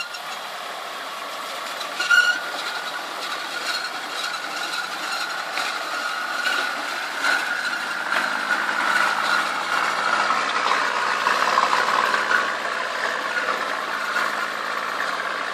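Maxxtracks rubber track units on a Toyota Land Cruiser ute squealing and rattling as it crawls over dirt, with its engine running underneath. There is a sharp squeal about two seconds in, and a steady whine that grows louder toward the end.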